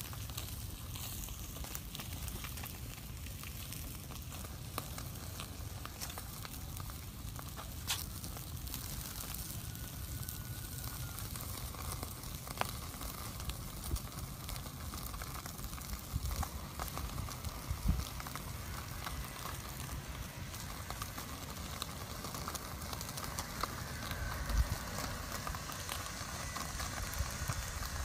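Small wood fire burning and crackling, with a steady hiss and scattered sharp pops, a few of them louder.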